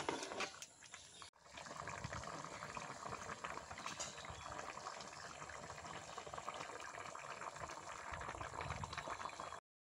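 Thick pork curry bubbling steadily at a rolling boil in a pot over a wood fire, cutting off suddenly near the end.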